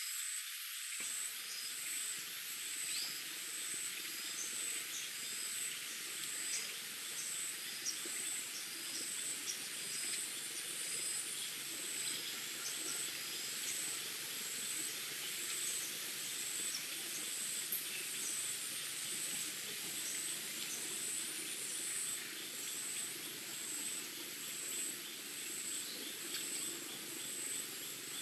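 Forest ambience: steady, high, rapidly pulsing insect chirring, with scattered short bird chirps.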